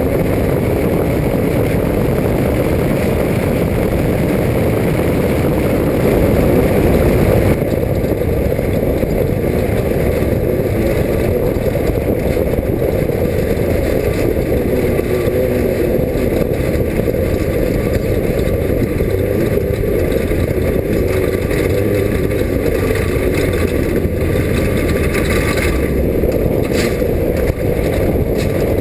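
Class 5 off-road race car's engine running hard at speed, loud and steady, with a brief surge about six seconds in.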